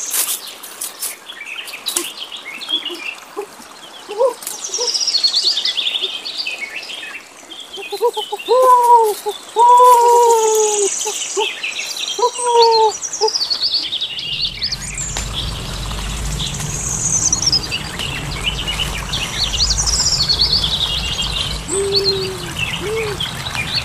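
Several forest birds chirping and trilling high and busily, with four or five lower, arched calls repeated in the middle. From about halfway a steady low rumble joins underneath.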